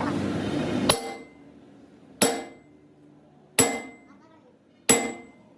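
Four evenly spaced hammer blows on metal, about one every 1.3 seconds, each with a short metallic ring. The first blow comes about a second in.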